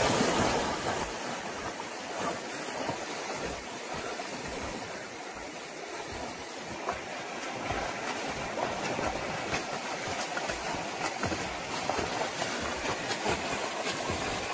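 Water splashing as people jump into a river and swim: a big splash of a body hitting the water right at the start, then ongoing splashing from swimming strokes.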